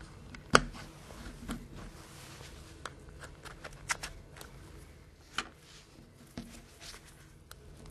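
Scattered small clicks and light handling rustle of plastic phone parts, as the battery cover of a Nokia 6210 Navigator is pried loose with a plastic opening tool and lifted off.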